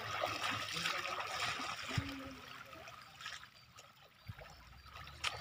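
Floodwater swishing and splashing around a man's legs as he wades through a flooded rice paddy, loudest in the first couple of seconds and then quieter, with a sharp knock about two seconds in.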